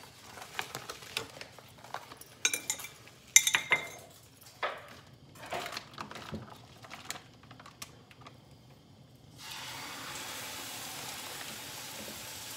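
Scattered clinks and knocks of a frying pan and utensils being handled on a gas stove while butter melts in the pan, the loudest a sharp clatter a few seconds in. About three-quarters of the way through, a steady sizzle starts as a chuck roast goes into the hot buttered pan to sear.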